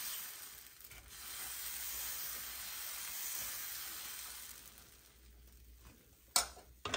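Ragi and moong dal dosa batter sizzling on a hot dosa griddle as a ladle spreads it in circles, the sizzle fading out after about four seconds. A sharp knock near the end.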